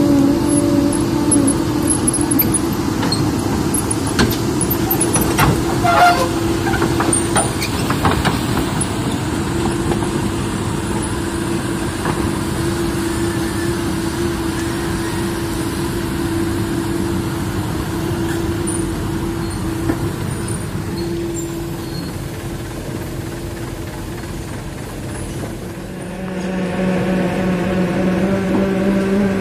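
Heavy diesel vehicle running steadily, with a few sharp clacks early on and a change in engine note near the end as it gets louder.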